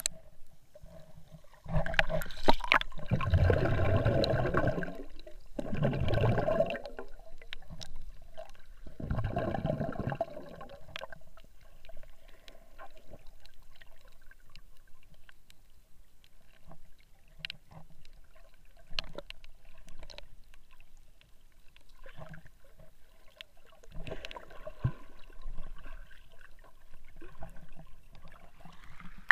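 Sea water heard through an action camera's waterproof housing underwater: muffled swishing and gurgling, with three louder surges in the first ten seconds, then faint water hiss with scattered small clicks.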